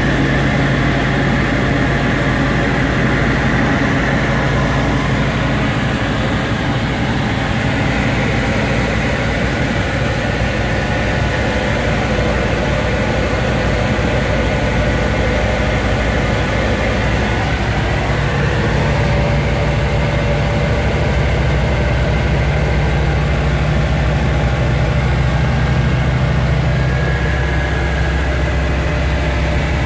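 Texan Top Class light aircraft's piston engine and propeller droning steadily at cruise power, heard from inside the cockpit.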